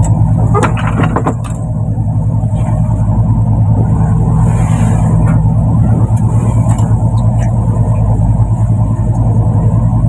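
Fishing boat's engine running steadily with a loud, even drone, heard on deck. A few light knocks about a second in.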